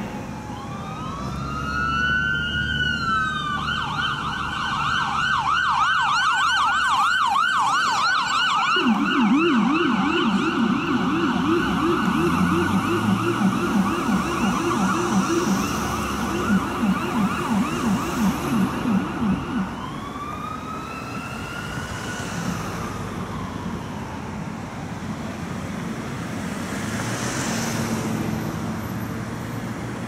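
Ambulance electronic siren: it starts with a rising wail, then switches to a fast yelp a few seconds in. About nine seconds in, a much lower yelp joins it. Both stop together near twenty seconds, and a single wail falls away into traffic noise.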